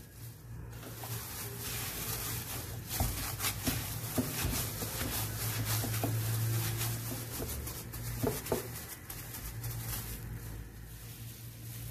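A hand in a disposable plastic glove kneading soft wheat-flour bhatura dough in a glass bowl: rustling, crinkling plastic and squishing dough with a few sharper clicks. A low steady hum runs underneath.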